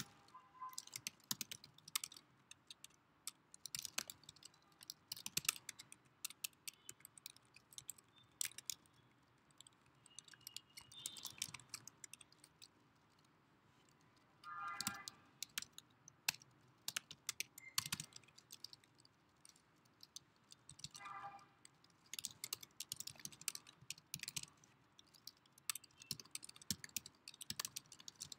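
Typing on a computer keyboard: quick runs of keystroke clicks with short pauses between them.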